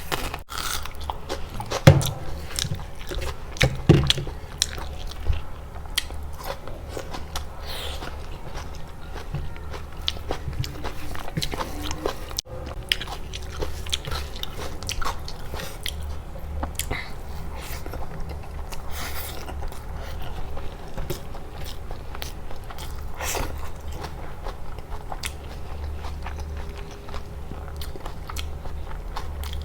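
A person eating close to the microphone: steady chewing and biting with many sharp, irregular clicking mouth sounds. The loudest bites come about two and four seconds in.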